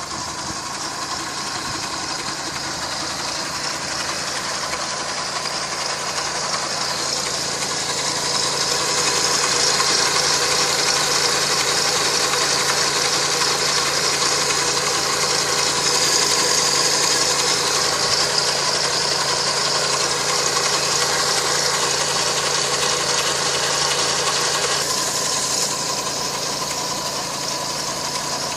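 2007 Honda CR-V engine running steadily at idle with a strange noise that the owner suspects points to a fault. It gets louder for a long stretch in the middle, then eases off near the end.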